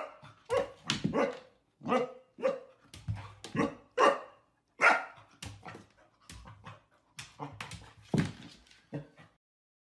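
Golden retriever puppy barking at its own reflection in a mirror: a run of short, sharp, playful barks, about one or two a second, stopping shortly before the end.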